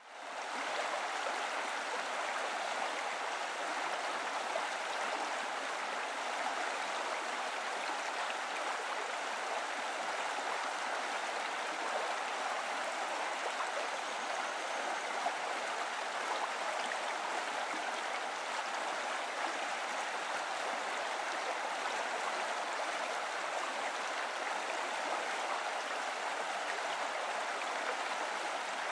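Steady running water, a constant rushing that fades in over the first second and then holds level.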